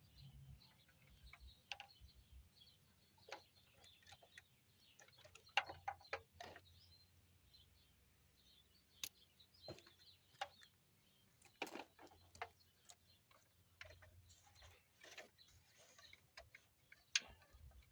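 Faint, irregular clicks and light knocks of hands handling engine parts and hoses, a dozen or so scattered taps.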